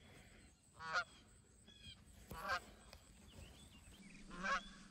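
A Canada goose honking: a few faint, separate honks about a second or two apart.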